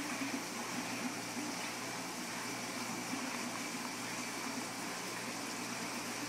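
Steady running-water noise with a low hum underneath from an aquarium's filter pump, unchanging throughout.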